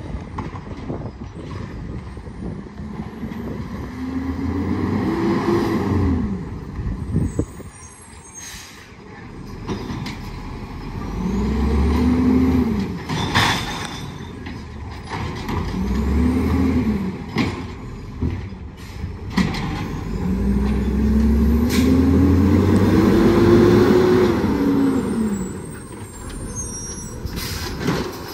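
Condor garbage truck's diesel engine revving up and dropping back four times, the last rev the longest, as the hydraulic side-loader arm is worked. Sharp knocks and clanks fall between the revs, one loud knock about halfway through.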